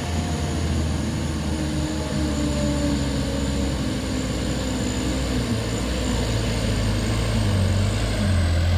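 Mitsubishi Canter Euro 2 truck's diesel engine pulling hard up a steep dirt grade: a steady low drone that grows louder as the truck approaches.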